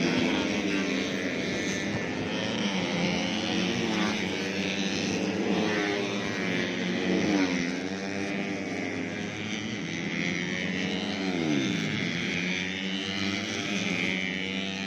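Several four-stroke 130cc underbone racing motorcycles at high revs, their engine notes rising and falling as they change gear, with the pitch dropping sharply three times as bikes go by.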